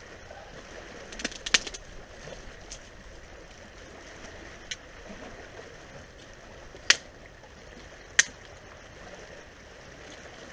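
Sharp, dry cracks of dead branches being broken by hand, about half a dozen: a cluster about a second and a half in and the two loudest near seven and eight seconds, over a steady background hiss.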